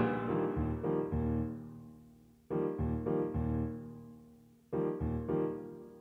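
Closing piano music: soft groups of struck notes that ring and die away, with a new phrase starting about two and a half seconds in and another near the end.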